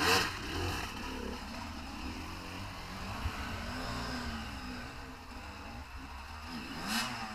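Off-road motorbike engine revving up and down repeatedly, its pitch rising and falling several times. There is a brief rush of noise at the start and another near the end.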